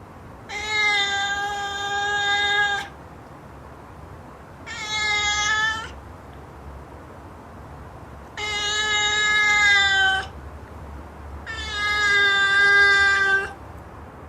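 A cat yowling: four long, drawn-out calls, each held at a steady pitch, the second one shorter than the others.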